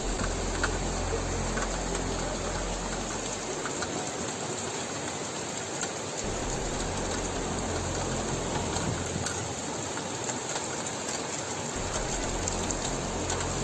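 Steady hiss of heavy rain and rushing floodwater, with a low rumble that comes and goes.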